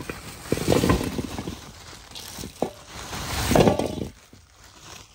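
Potatoes tumbling out of a woven plastic sack into a wide metal bowl, knocking and clattering against the metal and each other in two pours, about half a second in and again after three seconds, with a few single knocks in between.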